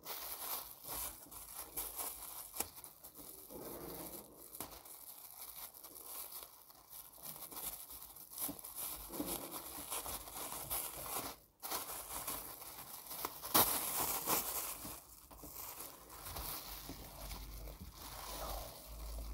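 Thin plastic takeout bag crinkling and rustling as hands work its knot loose and pull it open. It is a continuous run of small crackles that stops briefly about eleven seconds in.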